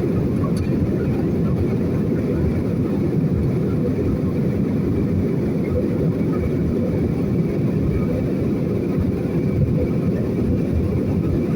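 Steady rumble of an airliner's engines and airflow heard from inside the passenger cabin, even and unchanging in level.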